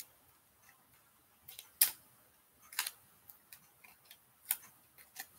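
A handful of faint, irregular sharp clicks and crackles as stiff plastic paddle pieces and duct tape are handled and pressed together by hand.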